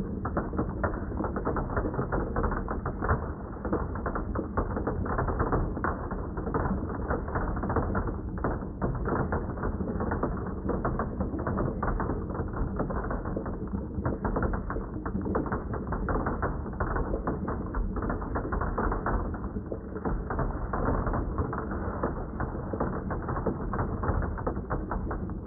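Marbles rolling and clattering down wooden marble-run slopes and rails: a dense, continuous rattle of small clicks, muffled with no high end.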